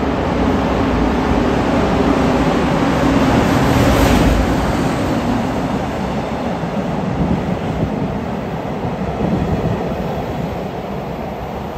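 EF510 electric locomotive hauling a container freight train past at speed. The noise swells to its loudest about four seconds in as the locomotive goes by, then settles into the steady rumble of container wagons rolling over the rails.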